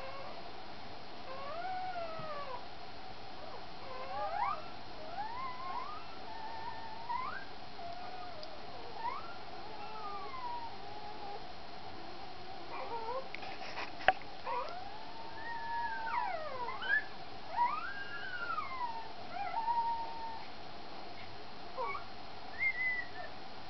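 Newborn Black Russian Terrier puppies squeaking and whining as they nurse: many short, high cries that rise and fall in pitch, over a steady faint hum. A single sharp click about fourteen seconds in.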